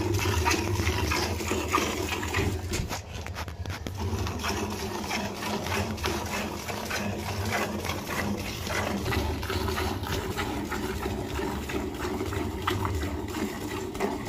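Cow being milked by hand: milk squirting in rapid, rhythmic jets into a metal pail, thinning briefly about three seconds in, over a low steady hum.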